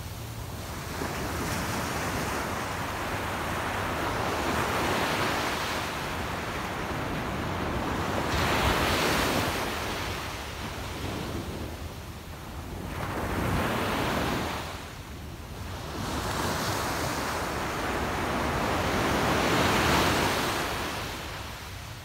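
Small waves breaking and washing up onto a sandy beach, the surf swelling and fading about five times.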